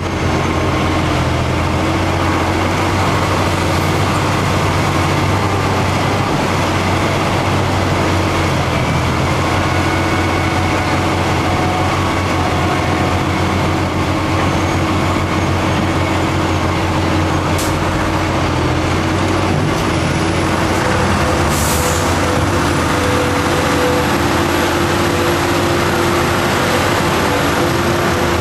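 Heavy diesel engines of a Mercedes-Benz SK dump truck stuck deep in mud and of the machines freeing it, running steadily and loudly. A brief hiss comes about three-quarters of the way through.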